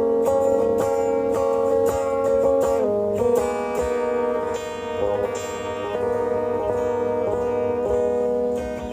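Background music led by guitar: plucked and sustained guitar notes.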